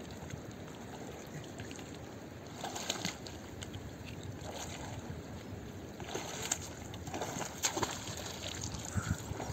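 A small makeshift boat being pushed across lake water with a stick: a few short splashes and knocks, about three seconds in and twice more in the second half, over a steady low background rush.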